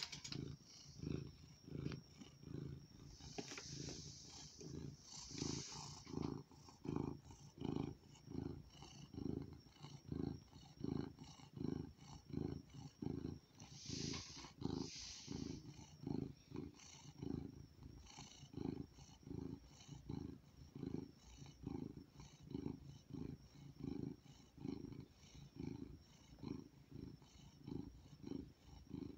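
Domestic gray tabby cat purring steadily and softly, the low purr pulsing about twice a second with its breathing. Two brief breathy hisses come once a few seconds in and again about halfway.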